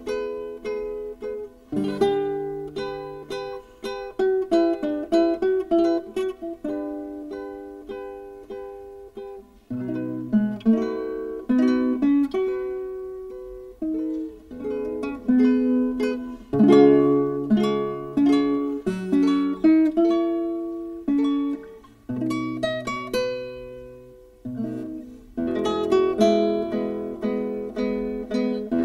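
Solo classical guitar played fingerstyle: a melody of plucked, ringing notes over lower bass notes, in phrases that fade into brief pauses before the next begins.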